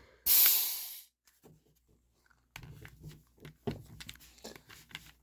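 A short, loud hiss of CO2 gas escaping as the Umarex TR68 revolver's CO2 cartridge is changed, fading out within about a second. It is followed by faint clicks and handling of the gun's parts.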